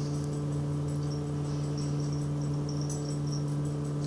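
A steady low electrical-type hum, with faint, high insect chirps that come and go over it.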